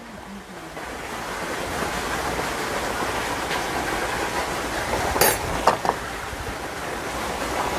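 Steady rushing background noise, with a few sharp clinks of metal tongs against the pan and bowl as chicken is served, the loudest about five seconds in.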